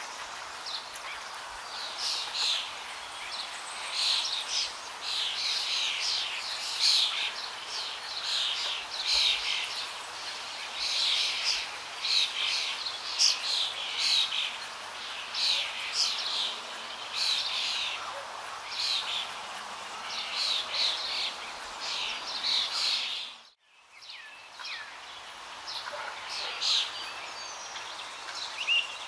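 Many small birds chirping and twittering over a steady rush of falling water. Late on, the whole sound dips briefly to almost nothing and comes back.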